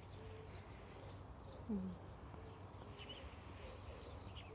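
Faint, scattered bird chirps over a steady low hum, with one short low falling sound a little under two seconds in.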